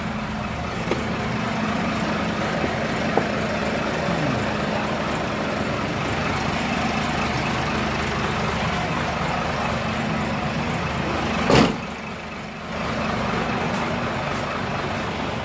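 Motor vehicle engine running at a steady idle, a constant low hum. About eleven and a half seconds in there is one short, loud burst of noise, and the hum dips for about a second after it.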